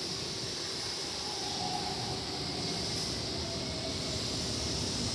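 Electric commuter train running at a station platform: a steady running noise with a hiss and a faint whine.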